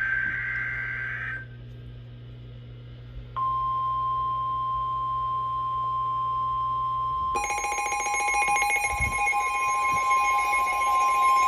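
NOAA Weather Radio emergency alert for a severe thunderstorm warning. The alert opens with the end of a SAME digital header burst, a warbling data screech, then a short pause. About three seconds in, the steady single-pitch 1050 Hz warning alarm tone starts. A second, rapidly pulsing electronic alarm joins the tone about seven seconds in.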